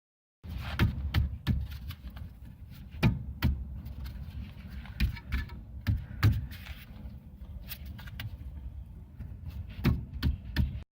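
Rear brake calipers of a Hyundai Elantra HD knocking: irregular sharp knocks and clicks over a steady low rumble, the knock from the rear suspension that the owner puts down to the calipers.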